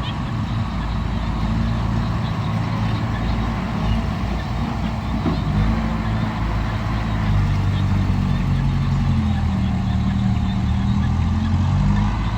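Heavy diesel engine of the recovery machinery running steadily at a constant speed, a deep even hum with no revving.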